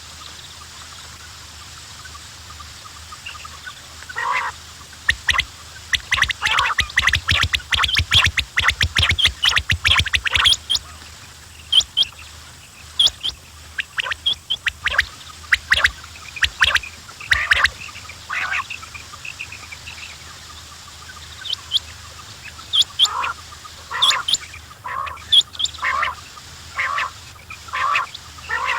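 Quails calling: a busy stretch of short, sharp calls and clicks in the first half, then scattered calls, then a regular series of calls about one a second near the end.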